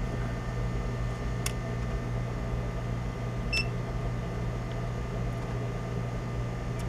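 Steady low mechanical hum, with faint clicks as the multimeter probes are worked into the plastic diagnostic test plug. About three and a half seconds in there is one very short, high chirp from the multimeter's continuity beeper as the probes touch.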